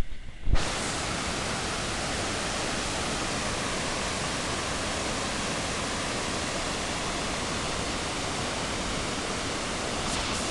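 Waterfall: a steady, even rush of falling water that cuts in abruptly about half a second in.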